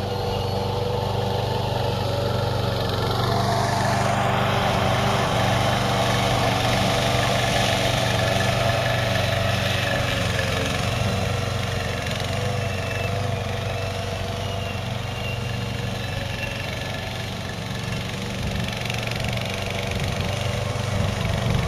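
Gas engine of a Hybrid GOAT 22T remote-control slope mower running steadily while it mows across a hillside.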